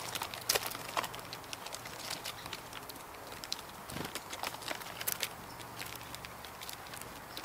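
Birds foraging on the forest floor, a blue jay among them: irregular sharp taps, pecks and rustles in dry leaf litter and on dead wood. The loudest taps come about half a second and one second in.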